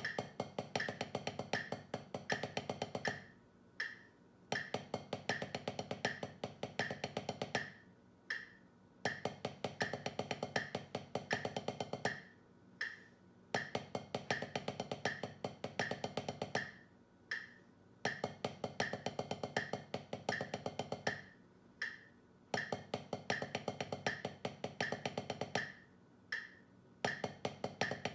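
Wooden drumsticks playing fast, even single strokes on a drum practice pad. The strokes come in repeated phrases of about three seconds, each followed by a pause of about a second.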